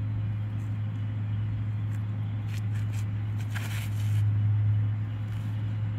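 A steady low hum of outdoor background noise. About three and a half seconds in come a few soft scuffs and a brief rustle as a disc golf drive is thrown from a concrete tee pad.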